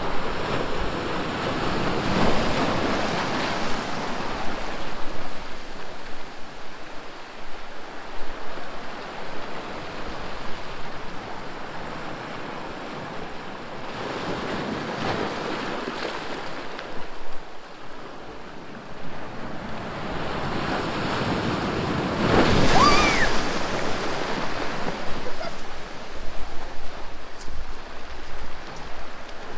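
Small surf waves washing in over rocks and sand at the shoreline and draining back, rising and falling in surges, with the loudest wave breaking close about two-thirds of the way through.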